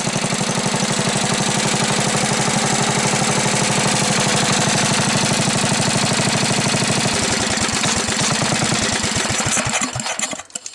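Briggs & Stratton 11 hp single-cylinder snowblower engine running steadily with a quick makeshift muffler, firing evenly. From about seven seconds in the firing slows, and the engine dies near the end as its ignition is grounded with a shutoff wire.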